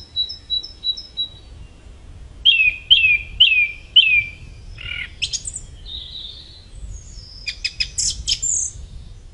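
Song thrush singing: a run of short high notes, then one downward-sliding phrase repeated four times, then a few varied notes and a quick burst of sharp, clicky notes near the end.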